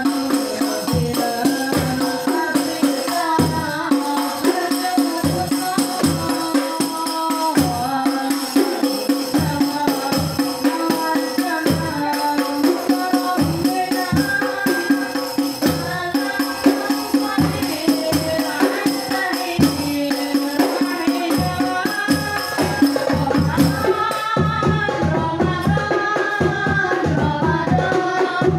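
Boys singing a sholawat (Islamic devotional song) through microphones and a small sound system, over darbuka, frame-drum and bass-drum strokes keeping a steady beat.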